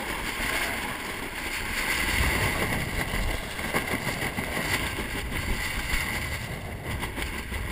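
Water rushing and splashing along the hull of a 470 sailing dinghy moving fast under sail, with wind buffeting the microphone in a continuous low rumble.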